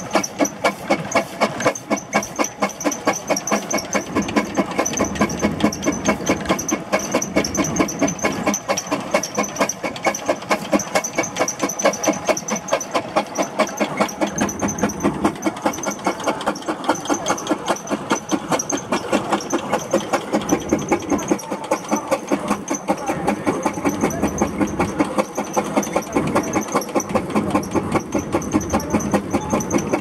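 John Fowler steam ploughing engine working under load, its exhaust chuffing in an even, rapid beat over a steady hiss of steam as it winds in the steel cable hauling the plough.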